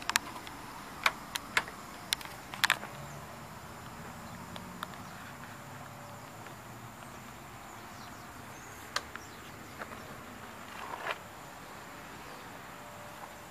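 Outdoor background noise with a faint, thin, steady high tone, broken by a few sharp clicks in the first three seconds and a couple more later on.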